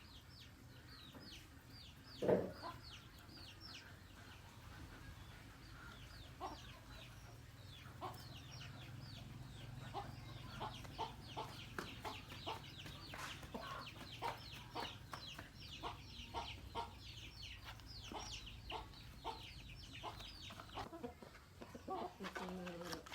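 Chickens clucking and peeping: many short, high peeps throughout, with lower clucks and one louder call about two seconds in.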